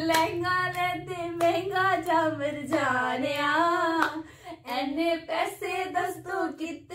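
A woman singing a Bollywood film song unaccompanied, in long held, wavering notes, with a few hand claps along.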